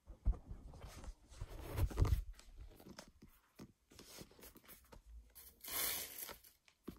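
Rustling and handling noise: a run of light knocks and scrapes, with a louder rustle about two seconds in and a hissing rustle near the end.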